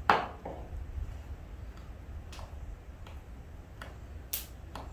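Kitchen knife slicing dates on a wooden cutting board: about five sharp, irregularly spaced clicks as the blade goes through and strikes the board, the loudest near the end.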